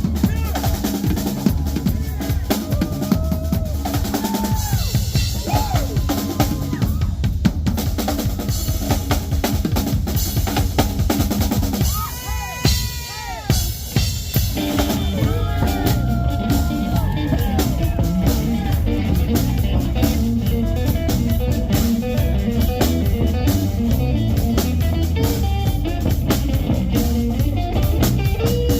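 Live drum solo on a full drum kit: rapid snare hits and rolls, rimshots and bass drum, with a few short gliding pitched notes over it and a brief let-up around halfway.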